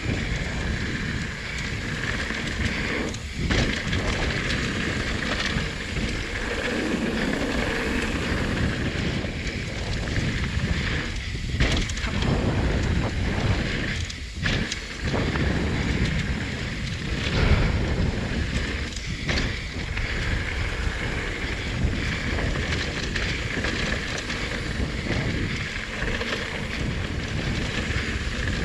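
Wind rushing over a chest-mounted GoPro's microphone while a Trek Rail 7 electric mountain bike is ridden along a dirt trail, with tyre noise and occasional knocks and rattles from the bike over the ground.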